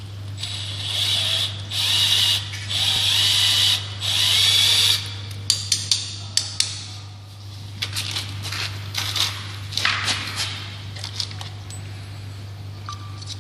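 Cordless drill run in four short bursts of one to two seconds each, followed by a quick series of sharp clicks and lighter knocks of copper pipe pieces and fittings being handled.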